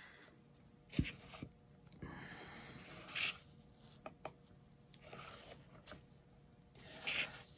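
Turntable under a freshly poured acrylic canvas being turned by hand: rubbing and scraping, with a sharp knock about a second in and scattered clicks.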